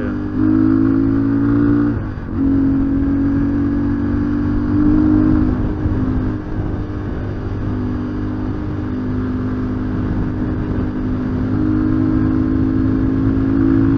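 A 250 cc Rokot Highlander enduro motorcycle's engine running steadily under way. Its pitch drops briefly and comes back about two seconds in, and shifts again a few times further on: gear changes and throttle changes.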